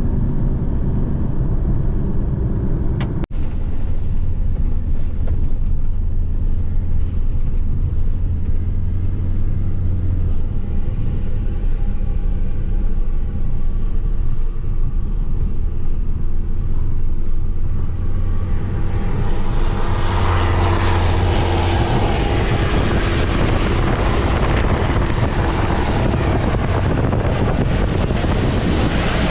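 A vehicle driving, with a steady low engine drone and road noise. There is a brief break about three seconds in, and from about two-thirds of the way through a louder rushing hiss joins the drone.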